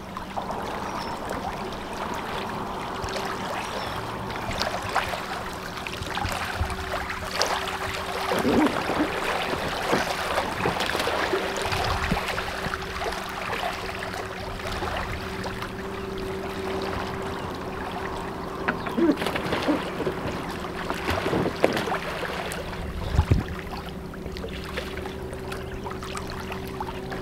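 Kayak being paddled on a lake: a narrow wooden paddle dipping and splashing in the water with each stroke, water lapping along the hull, and a few louder splashes standing out.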